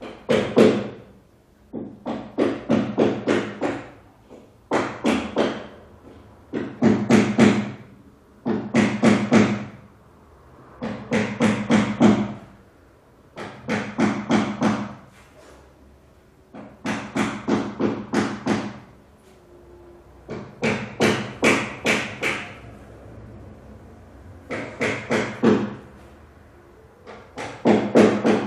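Hammer striking in quick bursts of about five to eight blows, roughly five blows a second, with pauses of about a second between bursts.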